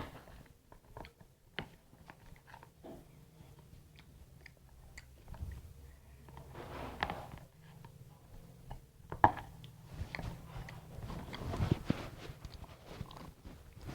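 Close-up eating of fried banana fritters (pisang goreng): biting and chewing, with irregular short clicks and soft crunches.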